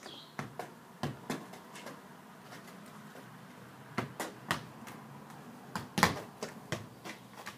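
A football being juggled: a series of short thumps as the ball is struck by foot and knee, coming irregularly in quick runs of two or three, with the loudest about six seconds in.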